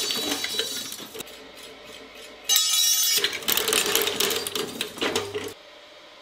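Twin-shaft shredder's steel cutter blades turning and chewing leftover metal scraps, a rapid metallic clinking and clattering with a sudden loud grinding burst about two and a half seconds in. The noise cuts off abruptly about five and a half seconds in, leaving a faint room hum.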